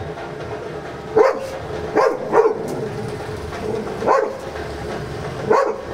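Dog barking: five single barks, unevenly spaced, over a steady low background hum.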